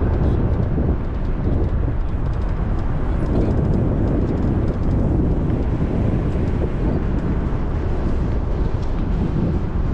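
Steady rumble of a vehicle driving slowly, engine and tyre noise with no clear changes.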